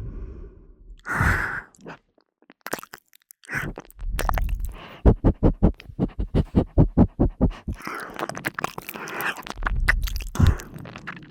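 Close-up ASMR mouth sounds of ear licking: a breathy puff about a second in, then a quick run of wet clicking licks, about five a second, and more breathy, wet mouth noise near the end.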